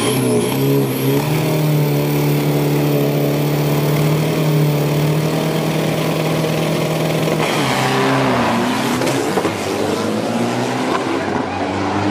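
3.0-litre turbo-diesel Isuzu D-Max drag pickup engines held at steady high revs on the start line. About eight seconds in, the engine note drops and then climbs again.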